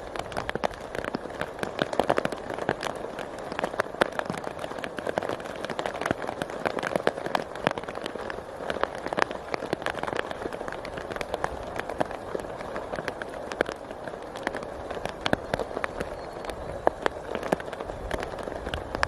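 Steady rain with many irregular drops striking a surface close by, a dense pattering of sharp ticks.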